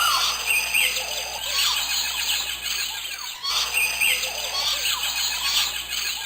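Many birds chirping and singing at once, a dense chorus of short, overlapping calls and quick pitch slides, with a brief dip about three and a half seconds in.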